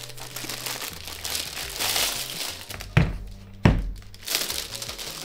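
Clear plastic wrapping crinkling as it is pulled off a plastic paint box, with two sharp thuds about three seconds in and again half a second later.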